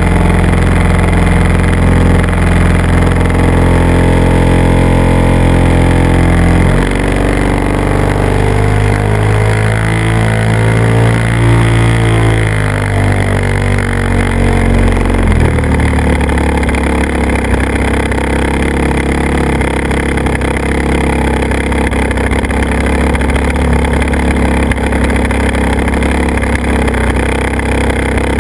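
Engine of a small propeller-driven aircraft running steadily, heard from the craft carrying the camera. Its note shifts about seven seconds in, wavers for a few seconds, and about halfway through drops into a rougher, steadier drone as the throttle changes.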